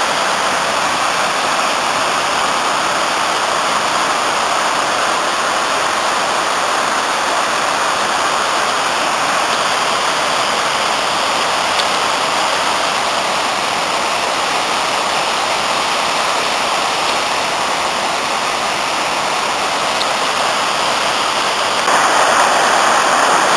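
Waterfall on a mountain river rushing with a steady roar of falling water, running full after several days of rain. Near the end the sound steps up suddenly and gets a little louder.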